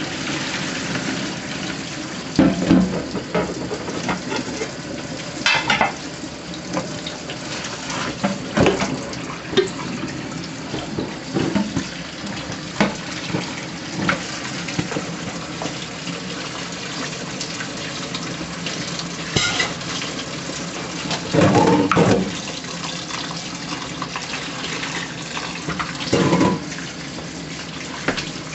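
Cold tap water running steadily onto just-drained spaghetti in a plastic colander in a steel kitchen sink. Several knocks and clatters come from the pot and colander being handled against the sink.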